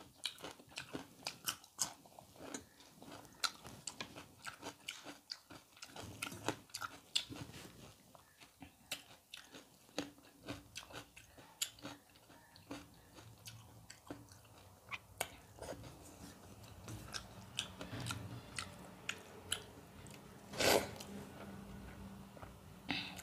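Close-up chewing and biting on crunchy food, mainly fried namkeen mixture and cucumber eaten with soaked rice, heard as many short, crisp crunches at an uneven pace. About three-quarters of the way through comes one louder, noisier crunch or slurp.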